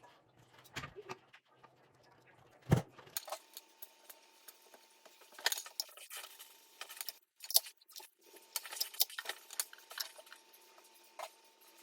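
Small tools and drone parts being handled on a workbench: scattered light clicks and metallic clinks, with a sharper knock a little under three seconds in.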